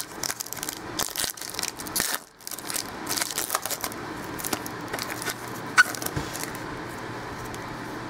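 Foil wrapper of a 2011 Rookies & Stars football card pack torn and crinkled open by hand, with trading cards slid and flicked against each other: dense crackling and clicking for the first few seconds, a single sharp snap about six seconds in.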